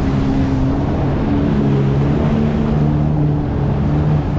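Jet ski engine running steadily at speed, its pitch shifting slightly, under a constant rush of wind and water spray.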